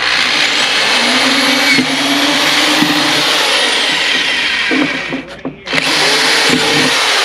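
Corded electric drill running as it bores holes through the bottom of a plastic battery box. It runs for about five seconds, stops briefly, then starts again.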